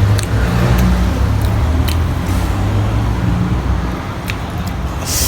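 Low steady rumble like a running vehicle engine, with scattered small clicks of eating and a short hiss near the end.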